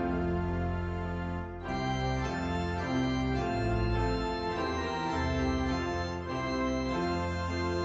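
Organ playing a hymn in sustained chords that change every second or so.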